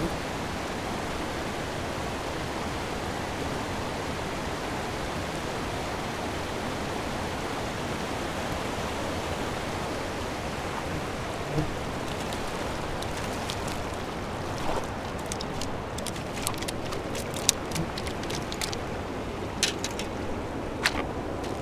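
Steady rushing of river water, an even wash of noise throughout. From about halfway on, a scattering of short sharp clicks and knocks sounds over it, several louder ones near the end.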